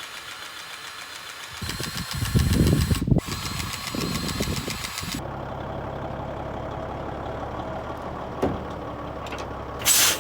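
Semi truck's diesel engine cranking and starting, then settling to a steady idle. A single knock comes a little past the middle, and a short loud hiss of air near the end.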